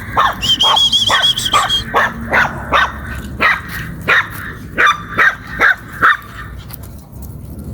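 Dog barking repeatedly: about a dozen sharp barks in quick succession, stopping about six seconds in.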